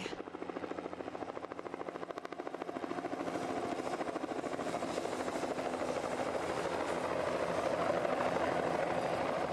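Helicopter rotor chopping in a fast, even beat, growing steadily louder.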